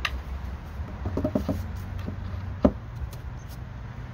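Metal-topped wooden lid of a homemade Layens swarm-trap box handled and set onto the box: a few light wooden knocks about a second in, then one sharp knock a little later, over a low steady rumble.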